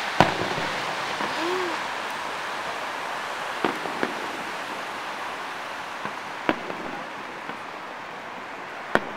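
Aerial firework shells bursting in the distance: about five sharp bangs, one at the start, two close together near the middle, one later and one near the end, over a steady background hiss.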